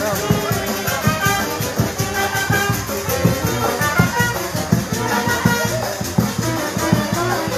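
Brass band playing upbeat Latin dance music live: a brass melody over a steady beat of drums and shaken percussion.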